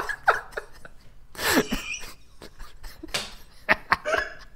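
A person laughing helplessly in short, breathy bursts, some falling in pitch, with two sharp clicks a little under four seconds in.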